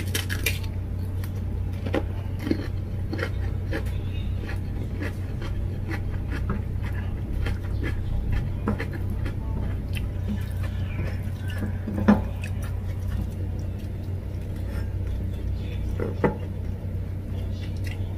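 Close-up eating sounds: a crunchy bite of fresh cucumber at the start, then chewing and fingers mixing rice on a ceramic plate, with scattered small clicks and two louder knocks in the second half, over a steady low hum.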